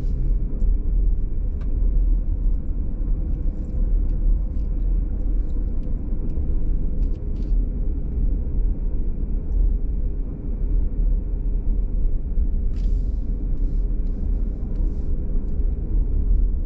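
Steady road and engine noise of a car driving, heard from inside: a constant low rumble with a faint steady hum.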